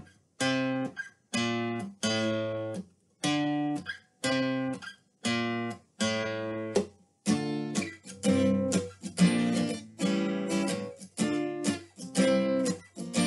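Acoustic guitar strumming short, muted chords about once a second, each cut off before the next. From about seven seconds in the strumming turns to a busier, more continuous rhythm.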